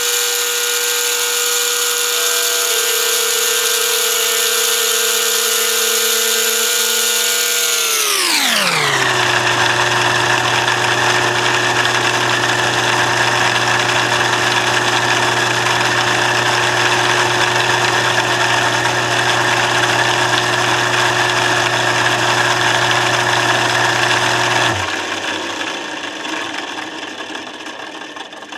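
Overhead drive motor spinning a drilling-frame cutter as it cuts a slot into the side of a wooden tube: a steady machine whine with many tones. The first part plays sped up, so the whine is pitched high, then about 8 seconds in all the tones drop sharply in pitch as playback returns to normal speed. About 25 seconds in, the low hum stops and the whine dies away over a few seconds.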